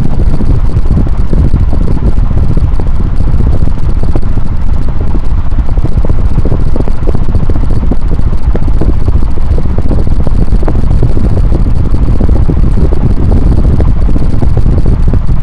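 NuTone Proline 56-inch industrial ceiling fan running, its airflow blowing across the microphone as loud, steady wind rumble.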